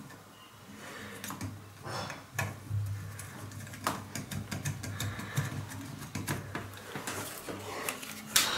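Irregular small clicks and taps of plastic and metal as hands work the roller and its screw on the lower edge of a shower-cabin sliding door panel, with a low hum underneath.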